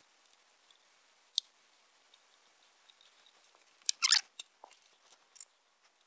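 Small, sharp metallic clicks and brief scraping as button-head machine screws are handled and started by hand into a sheet-metal power supply case: a single sharp click about a second and a half in, and the loudest cluster of clicks and scraping about four seconds in.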